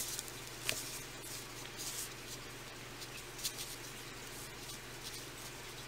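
Soft rubbing and faint crackling of hands pressing a fabric leaf into two-part silicone mold putty, with a few light handling taps, over a steady low hum.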